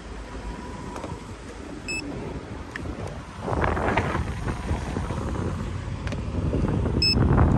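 Wind buffeting the microphone, gusting louder about halfway through. Two short electronic beeps, about two seconds in and near the end, come from a handheld paint-thickness gauge as it takes a reading on the car's roof.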